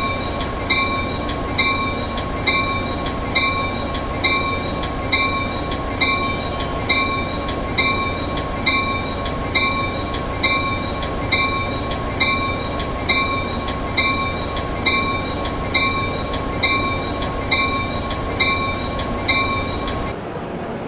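EMD diesel locomotive's steel bell ringing steadily, one clang a little more often than once a second, each stroke ringing on into the next. The ringing stops abruptly near the end.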